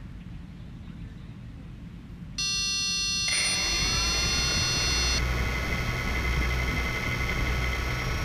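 3DR Iris+ quadcopter's electric motors starting up: about two and a half seconds in, a high electronic whine of several steady tones starts suddenly. About a second later the motors spin up with a rising whine and keep running steadily at idle, with a rushing noise from the propellers.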